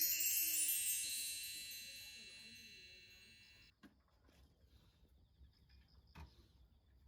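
A shimmering cascade of high chime tones ringing and fading away, cut off sharply a little under four seconds in. Then faint quiet with one soft click near the end.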